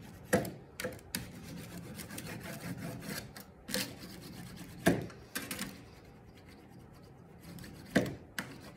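A steel burnisher rubbed back and forth along the bevelled edge of a thin copper etching plate, smoothing it: a steady rubbing with several sharp clicks, the loudest about five seconds in.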